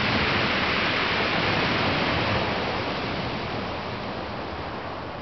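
Steady hiss of small waves breaking and washing over shingle, with wind rumbling on the microphone; loudest at first, fading gradually from about halfway.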